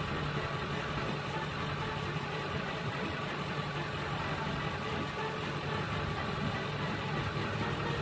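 A vehicle engine idling steadily, an even low hum that does not change.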